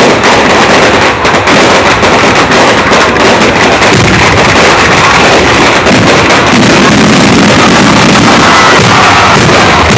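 A fireworks display at close range: a dense, unbroken run of bangs and crackles, loud enough to keep the recording at its limit.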